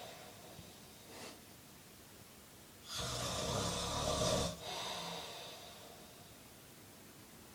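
A man snoring in his sleep: one loud snore about three seconds in, lasting a second and a half, then a softer breath out, with a faint breath near the start.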